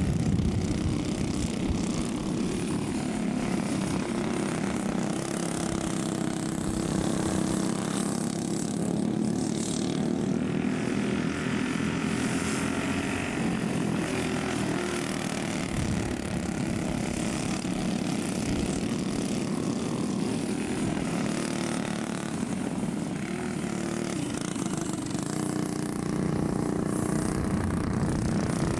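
Several racing go-kart engines buzzing as the karts race around a dirt oval. Their pitch wavers up and down as they go through the corners and pass.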